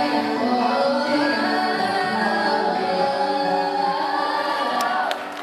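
Music with several singing voices, dipping in level near the end.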